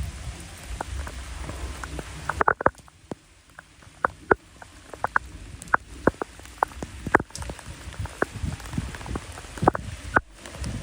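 Rain, with individual drops striking a surface as irregular sharp taps over a faint hiss and a low rumble underneath.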